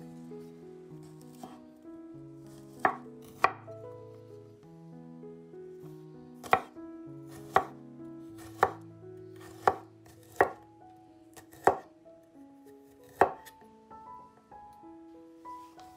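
Santoku knife slicing garlic cloves on a wooden cutting board: about nine sharp knocks of the blade on the board, roughly one a second, over quiet background music.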